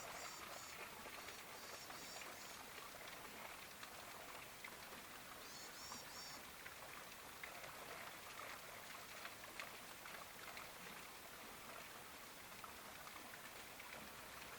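Faint, steady patter of light rain, with short runs of high chirps near the start, about two seconds in, and about six seconds in.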